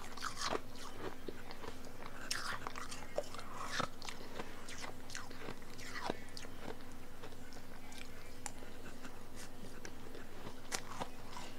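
Close-miked biting and chewing of powdery blender-crushed ice: crisp, crackly crunches in clusters, busiest in the first half and sparser toward the end.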